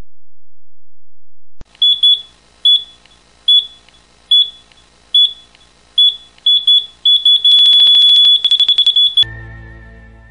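Electronic beeping sound effect: high, even beeps a little under a second apart. Near the end they quicken and run into one continuous beep that cuts off suddenly, leaving a lower tone that fades away.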